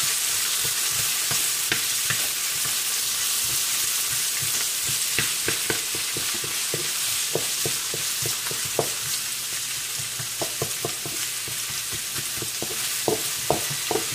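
Chopped onions, ginger and bell peppers sizzling in hot oil in a metal wok, with a steady hiss, while a wooden spatula stirs them, scraping and knocking irregularly against the pan.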